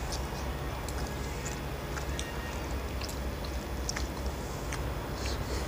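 Eating sounds: fingers mixing rice on steel plates and chewing, with scattered small, faint clicks over a steady low hum.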